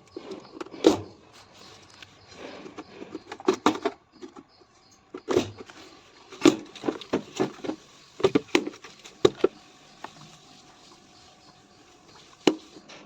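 Irregular knocks, clicks and scrapes of hand tools and loose parts as a front-load washing machine is taken apart, with a sharp knock about a second in.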